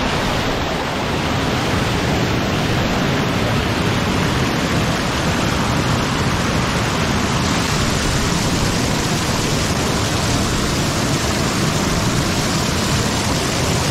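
Water spilling over a low concrete river weir, heard as a loud, steady rush of falling, splashing water right at the microphone.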